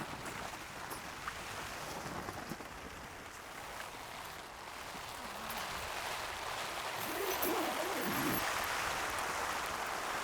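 Rain falling on the flysheet of a Hilleberg Nammatj tent: a steady hiss that grows heavier over the second half.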